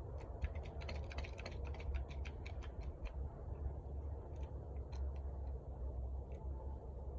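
Light, quick metallic clicks and ticks from a crimp lug and battery cable being fitted into a hydraulic crimper and snugged down. The clicks come in a rapid cluster for about the first three seconds, then thin out to scattered ticks over a steady low hum.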